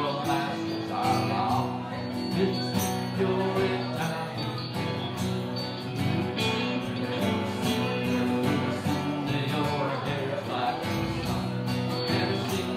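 A small live band playing an instrumental passage between sung lines, with electric guitar, bass guitar and strummed acoustic guitar.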